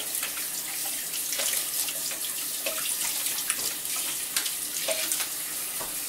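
Kitchen faucet running into a stainless steel sink while AeroPress parts are rinsed under the stream. The water hisses steadily, with a few light knocks scattered through it.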